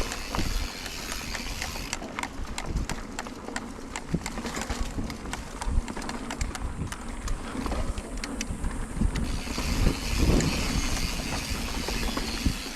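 Mountain bike rolling along a dirt trail: tyre noise with many quick clicks and rattles over the bumps, under a low wind rumble on the microphone.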